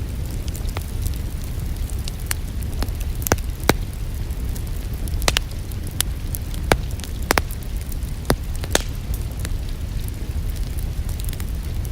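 Wood fire crackling in a fireplace: irregular sharp pops and snaps over a steady low rumble, with a few louder pops in the middle.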